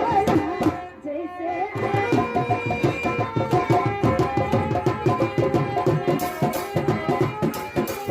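Nautanki music: tabla playing a fast, steady rhythm under a sustained melody line, with a brief lull about a second in.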